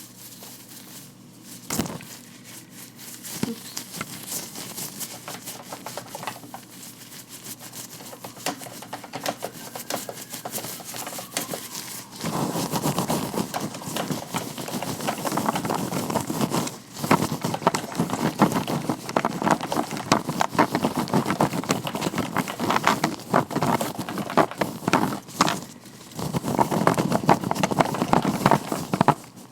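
Hands in vinyl-latex gloves rubbing and handling close to the microphone: a dense, crackly stream of small clicks and glove noise, much louder from about twelve seconds in.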